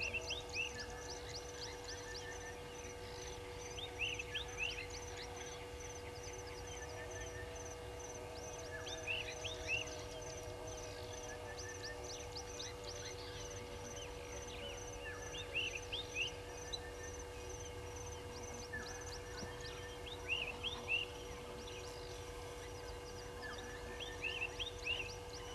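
Outdoor birdsong. One bird repeats a short phrase of quick notes about every four to five seconds over a high, fast, continuous trilling chirp, with a faint steady hum underneath.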